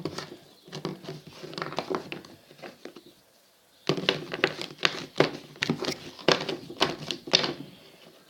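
Homemade slime mixture of glue and paint being stirred in a container: quick, irregular clicking and squelching in two spells, the second longer and louder.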